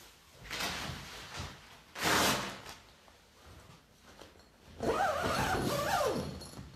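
Fishing gear being handled and shifted on a table: rustling, a loud scrape about two seconds in, then a wavering squeak lasting about a second and a half from about five seconds in.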